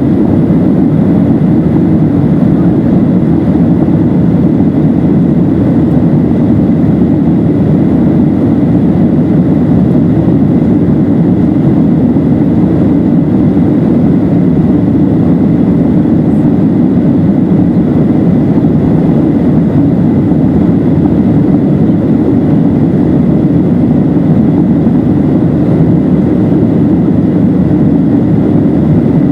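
Steady cabin noise of a Boeing 737-700 in flight: the low roar of the engines and rushing air, with a faint steady high whine on top.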